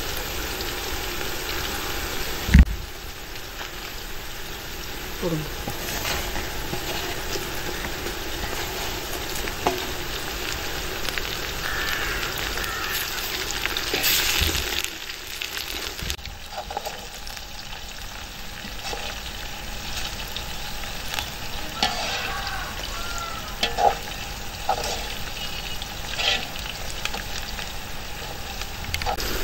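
Sliced shallots, garlic and green chillies frying in oil in an aluminium pot, a steady sizzle, with a metal spoon scraping and clinking against the pot as it is stirred. A thump about two and a half seconds in, and a louder, brighter burst of sizzling about halfway through.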